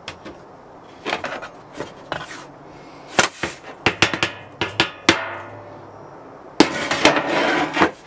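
Plastic scraper knocking and scraping red casting sand off a metal baking tray: a string of knocks and clatters, one leaving a short ring from the tray, then a loud scrape lasting about a second and a half near the end.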